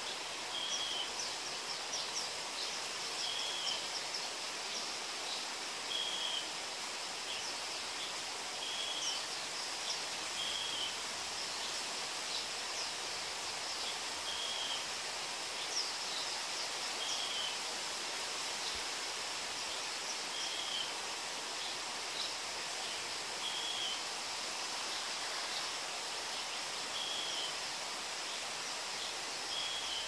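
Steady rain hiss with a bird repeating one short, high note every two to three seconds, about a dozen times, and scattered higher chirps.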